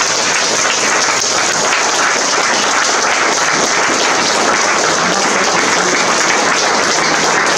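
Audience applauding: steady, dense clapping from a small crowd in a gallery room.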